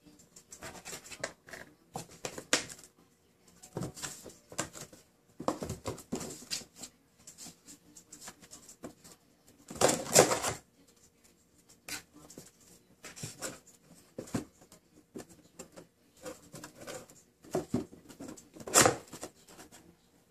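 Cats scrabbling in and on a cardboard box: claws scratching and rustling the cardboard and paws pattering on a hardwood floor, in irregular scratchy bursts, loudest about ten seconds in and again near the end.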